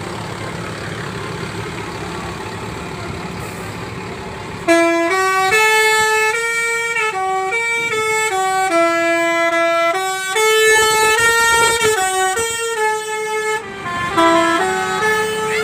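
A bus's multi-tone telolet horn plays a tune of stepped notes, several a second, starting about five seconds in. Before it, a steady rumble of the engine and traffic.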